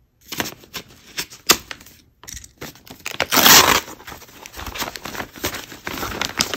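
Scissors snipping open a padded paper mailer, then the envelope's paper crinkling and tearing as a cardboard-stiffened item is pulled out. The loudest part is a rasping tear about three and a half seconds in, followed by steady rustling.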